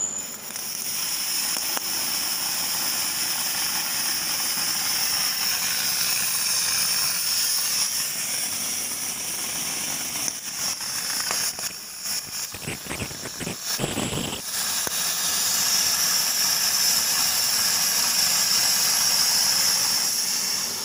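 Cutting torch of a CNC plasma and flame cutting machine cutting steel plate, giving a loud, steady hiss. For a few seconds around the middle it is broken by uneven knocks and rumbling, then the hiss returns slightly louder.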